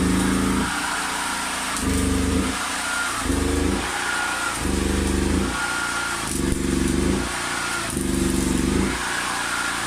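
Generator engine running with a regular surge, its note rising and falling again roughly every second and a half.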